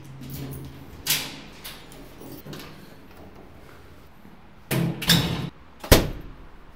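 Doors being worked: a doorknob and latch clicking a few times, then a metal-mesh security door rattling and a sharp metallic bang about six seconds in as it shuts.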